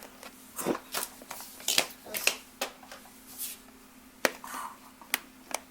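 Plastic clicks and scraping as a small plastic toy surprise container is handled and pried at without opening; several sharp clicks stand out near the end.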